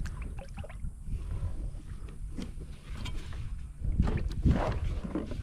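Water sloshing close by, with scattered light clicks and knocks of handling noise and a low rumble that swells about four seconds in.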